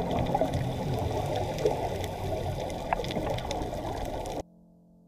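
Muffled underwater noise picked up through a GoPro's waterproof housing: a steady rushing of water and divers' exhaled bubbles with scattered faint clicks. It cuts off suddenly near the end, leaving only a faint held tone.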